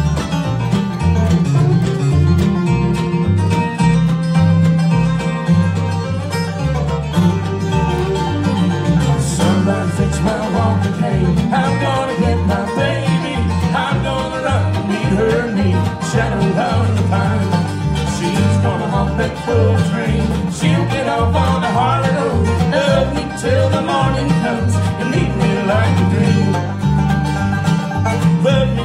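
A bluegrass band playing live: banjo, fiddle, acoustic guitar and mandolin over an upright bass line.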